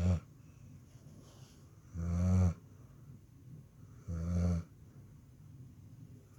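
Dog snoring in deep sleep: the tail of one snore right at the start, then two more about two and four seconds in. Each snore is short and low-pitched, about half a second long, with quiet breathing in between.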